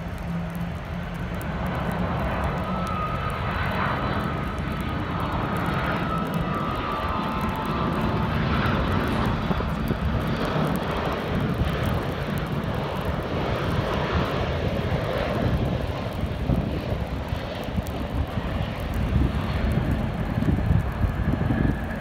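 Japan Airlines twin-engine jet airliner's engines on approach and landing: a steady jet rumble, with a thin whine that fades after about seven seconds.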